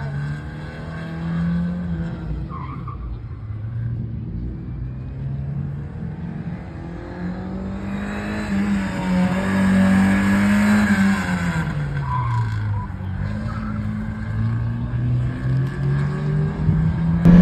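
1986 Porsche 944's four-cylinder engine revving up and easing off repeatedly under hard autocross driving. The tyres scrub and squeal for a few seconds in the middle, where the revs peak.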